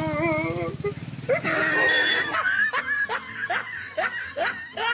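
Laughter: a wavering giggle at the start, then a run of quick laughs, about three a second, from about two seconds in, over music.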